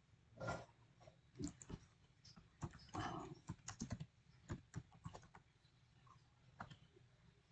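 Computer keyboard typing: faint, irregular keystroke clicks as a short word is typed.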